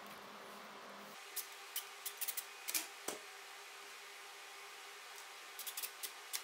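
A few light clicks and taps from hands handling a flexible plastic dust collection hose and perforated metal strapping being fitted around it.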